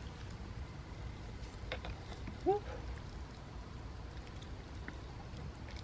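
Chopsticks stirring in a plastic self-heating hot pot bowl, with a few faint clicks, over a low steady rumble. A brief rising hum of voice about two and a half seconds in.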